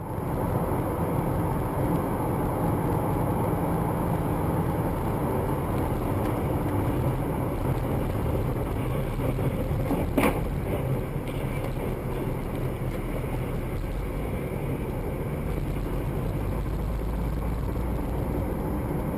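Car on the move: steady engine and road noise, with one short sharp knock about ten seconds in.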